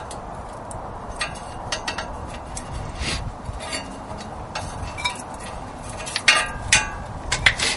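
Scattered metallic clinks and knocks from metal car parts and tools being handled, with a few louder clanks in quick succession near the end.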